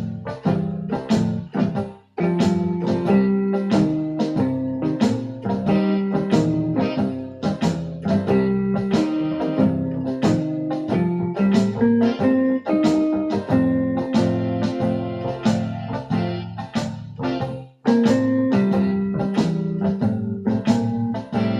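Electronic keyboard playing a blues in a piano-like voice, with sustained chords under steadily struck notes; the playing breaks off twice briefly, about two seconds in and near the end.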